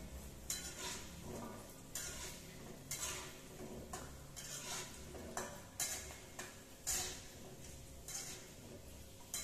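Slotted metal spatula scraping and clinking against a wok as it turns food frying in oil, with a frying sizzle underneath. The scrapes come about once a second, a few of them louder than the rest.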